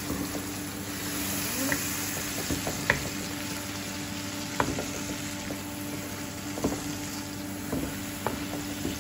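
Sliced onions with spices and a splash of water sizzling in a non-stick frying pan while a wooden spoon stirs them, with scattered light taps and scrapes of the spoon against the pan.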